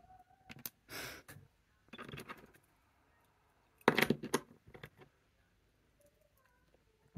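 Small plastic Lego pieces clicking and clattering against each other and the tabletop as they are picked up and handled, in short irregular bursts, loudest about four seconds in.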